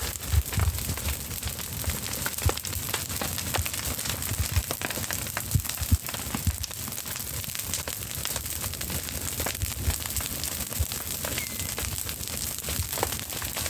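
Fire burning through dry banana leaves and plant litter, crackling and popping steadily, with a low, uneven rumble underneath.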